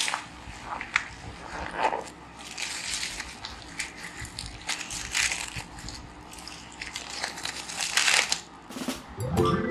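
Velcro-joined plastic toy vegetables being pulled apart: short rasping rips, each about a second long, with light plastic clicks and knocks. Music starts just before the end.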